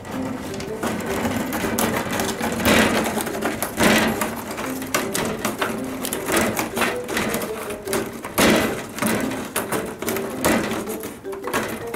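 Domestic cat's claws scratching and rasping repeatedly at the edge of a frosted glass window and its frame, with a few louder bouts about three, four and eight seconds in. Light background music plays underneath.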